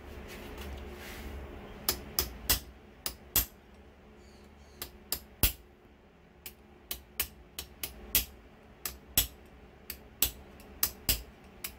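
Hammer tapping a thin punch against the water pump base plate of a Yamaha F115 outboard lower unit: a run of sharp metallic taps beginning about two seconds in, irregular and often in quick clusters of two or three, working loose parts that have rusted in place.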